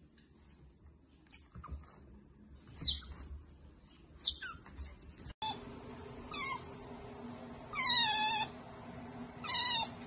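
Otter calling in short, high squeaks that fall in pitch, six in all, the one about eight seconds in longer and wavering.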